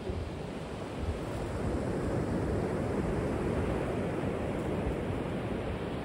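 Ocean surf breaking along an outer reef, a steady wash of waves that swells a little toward the middle.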